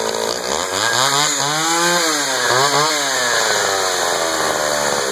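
Echo CS-500VL two-stroke chainsaw running, its engine speed climbing and falling twice in quick succession, then sinking slowly toward the end.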